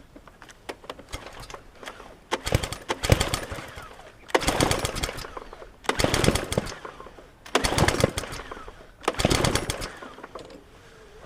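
Petrol lawn mower engine pull-started five times, each time firing in a short rapid burst for about a second and then dying. It only runs while freshly primed because its primer bulb is split.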